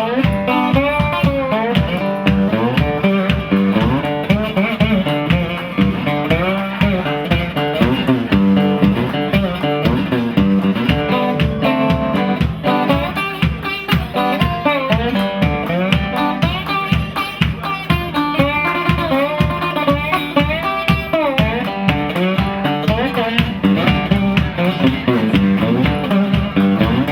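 Live band playing, led by guitar over a steady drum beat.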